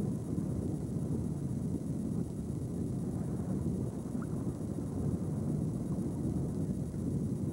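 Steady low rumble of wind buffeting the camcorder microphone, rising and falling slightly with no distinct knocks or engine tone.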